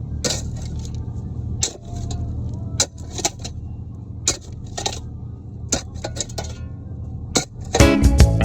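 Kobelco SK55 mini excavator's diesel engine running steadily, with scattered sharp clinks and knocks while digging. Music comes in near the end.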